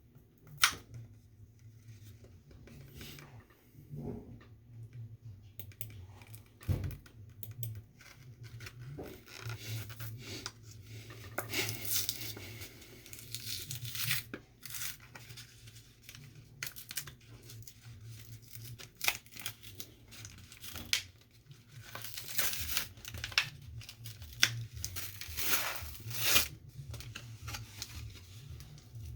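Yu-Gi-Oh booster pack wrappers being torn open and crinkled, in repeated bursts of tearing and rustling with small clicks between.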